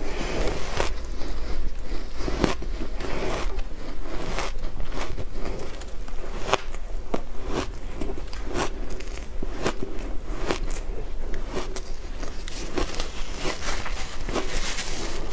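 Shaved ice crunching as it is eaten by hand: a quick, irregular run of sharp crunches and crackles.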